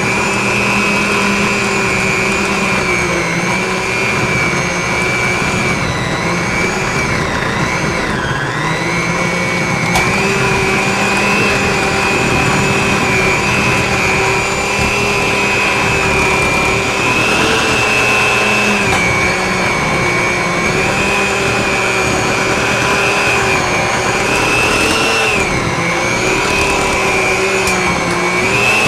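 Electric hand mixer running steadily, its beaters working a thick cream cheese frosting to beat out the lumps of unsifted confectioners' sugar. The motor whine dips briefly in pitch a few times.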